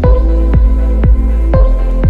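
Background music with a steady beat, a little more than two beats a second, over held low bass notes.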